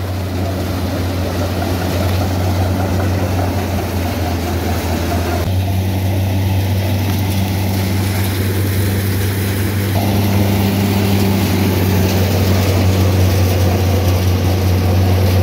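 A just-started engine running at a steady speed: a deep, even hum. Its tone shifts abruptly about five and a half seconds in and again at ten seconds.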